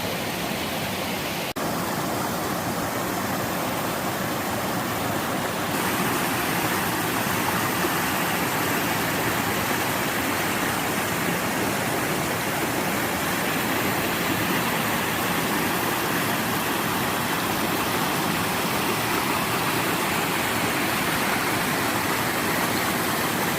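Waterfall on a mountain stream, water pouring and rushing steadily. There is a brief break about a second and a half in, and the sound steps slightly louder about six seconds in.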